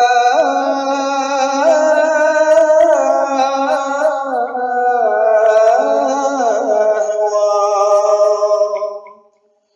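Vocal chanting of a devotional song in praise of the Prophet, with long held notes that bend and ornament slowly. The phrase ends about nine seconds in, followed by a short silence.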